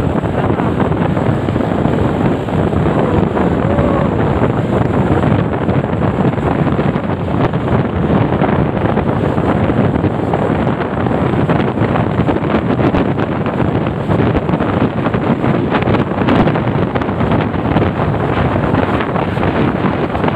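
Steady wind rushing over the microphone of a camera carried on a moving motorcycle, mixed with engine and road noise from the ride.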